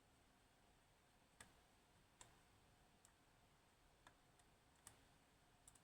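Near silence broken by about six faint, sharp clicks, roughly one a second: a lock pick setting and probing the pins of a DOM S pin tumbler lock under tension.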